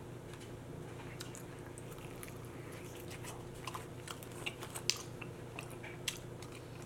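Close-miked chewing of a sauced boneless chicken wing dipped in ranch: soft, wet mouth clicks scattered through, sharpest about four to five seconds in and again near six seconds, over a low steady hum.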